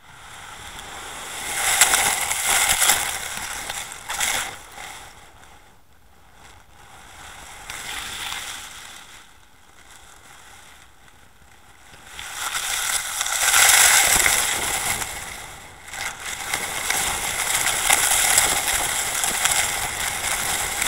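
Underwater camera housing dragged and bumped across a gravelly, shell-strewn seabed: a gritty scraping and crunching rush that surges and fades several times, the longest and loudest stretch running through the second half.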